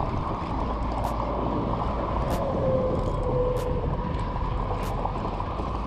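Spinning reel being cranked steadily to bring in a hooked fish, with a faint click about every second, over a steady low rumbling wash of noise.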